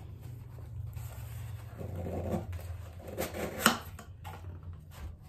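Small cardboard box being opened by hand: soft scraping and rustling of the packaging, with two sharp clicks about three seconds in, the second the loudest. A steady low hum runs underneath.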